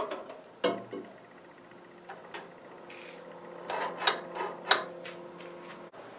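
Sharp metallic clicks and taps as the fuel line fittings and carburetor linkage of a Ford Model A engine are handled by hand, a few near the start and a quick cluster about four seconds in, over a steady low hum.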